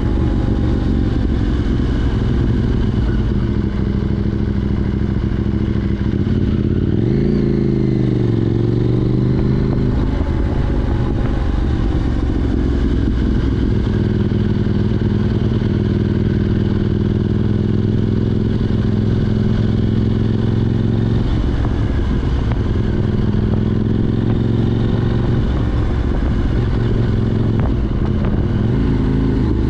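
KTM 790 Duke's parallel-twin engine through an Arrow Race Tech de-cat exhaust while riding, the note rising and falling with the throttle. Its pitch climbs and drops about seven seconds in, holds steady at a cruise for several seconds in the middle, then changes again near the end.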